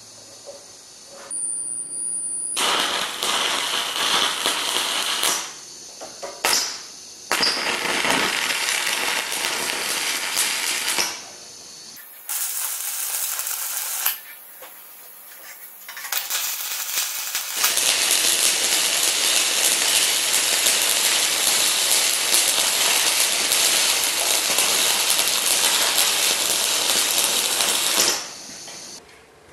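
Arc welding on heavy steel: a crackling, sizzling hiss in several runs of a few seconds each, the longest about ten seconds near the end.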